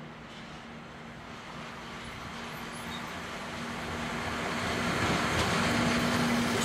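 SBB Cargo electric locomotive hauling a container freight train as it approaches and passes close by. The rumble of wheels on rail grows steadily louder and is loudest near the end, with a steady hum over it.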